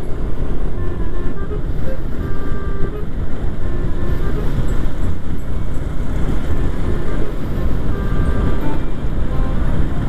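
Yamaha MX King 150 motorcycle under way at about 40 km/h: its single-cylinder engine running steadily, mixed with a constant rumble of wind on the helmet microphone.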